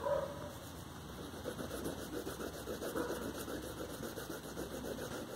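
Rapid, scratchy back-and-forth strokes of a colour being rubbed over a paper card as it is coloured in yellow, growing busier after about a second and a half.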